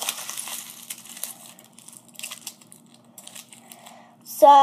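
Aluminium tinfoil being crumpled and squeezed into a ball by hand. The crinkling is dense at first and thins to scattered faint crackles.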